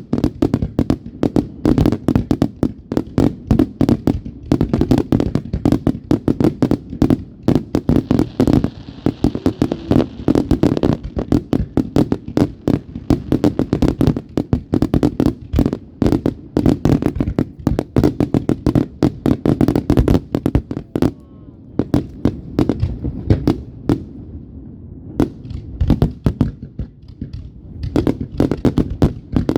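Fireworks going off in a dense, continuous barrage of sharp bangs and crackles, many a second, with a brief hiss about a third of the way in.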